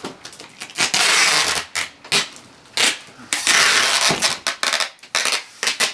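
Close crunching and rustling in two long stretches, with many short clicks and knocks between them.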